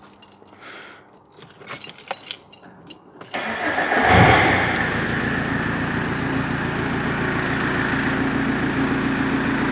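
Keys jingling faintly in the ignition, then the Vauxhall Vectra 1.9 CDTi four-cylinder turbodiesel cranks and catches about three seconds in, flares briefly and settles to a steady idle. It runs a bigger turbo and a straight-through exhaust with no cats or silencers, so the tickover is loud with a burble.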